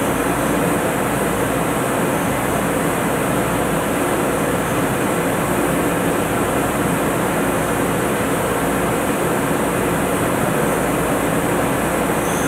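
Steady drone of offshore drilling rig machinery, loud and unbroken, with a low hum underneath.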